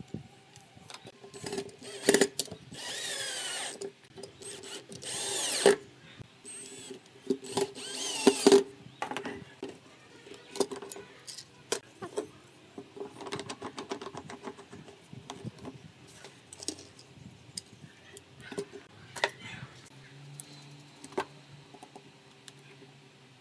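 A cordless drill runs in short whirring bursts, its pitch shifting as it bites, while holes are drilled or screws driven through small metal hinges into pine. Knocks and clicks of wood and hardware being handled come between the bursts, and the drilling is concentrated in the first third.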